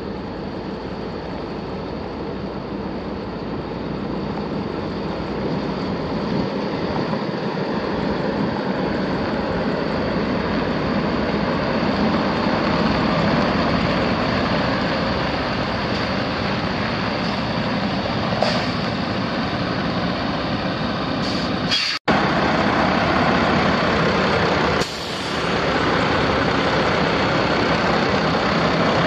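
Detroit Diesel DD13 six-cylinder diesel of a 2010 Freightliner Cascadia semi truck running, growing louder over the first ten seconds or so. The sound breaks off abruptly about 22 seconds in and comes back louder, with a second short dip a few seconds later.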